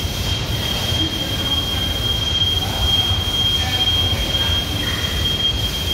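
Machine drive running at very low speed: a steady low hum with a constant high-pitched whine.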